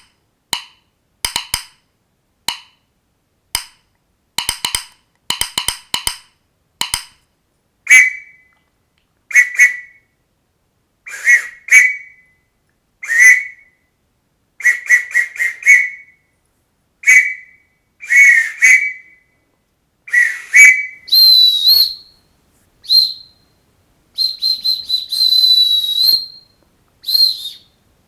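A run of sharp, quick clicks, then a series of short squeaky chirps in ones, twos and threes, then higher whistle notes for the last several seconds, some of them held about two seconds.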